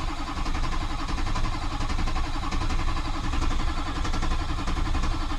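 Diesel truck engine turning over on the starter motor in a steady, even rhythm without catching: it cranks but does not start.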